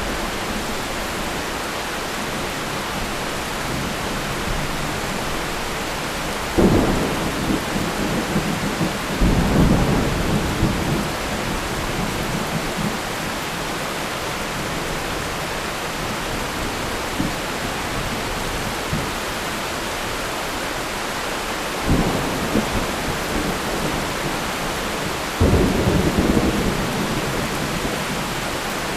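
Thunderstorm: steady rain hissing throughout, with four sudden rolls of thunder. Two come close together about a quarter of the way in, the second rumbling on for a couple of seconds, and two more come near the end.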